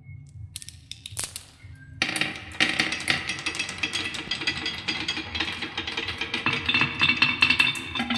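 Marbles rolling down a wooden zigzag marble run. A few single clicks come first, then from about two seconds in a dense, continuous clatter as the marbles roll and knock against the wooden baffles.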